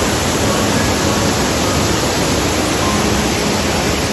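Waterfall pouring over rock ledges into a pool: a loud, steady rushing of falling water.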